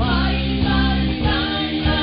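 A live rock band playing, with electric guitar, bass guitar and a sung vocal line over a sustained chord.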